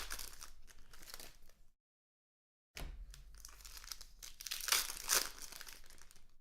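Foil trading-card pack wrappers crinkling and tearing, with cards being handled, cutting out completely for about a second near the two-second mark before resuming, louder again a little after the middle.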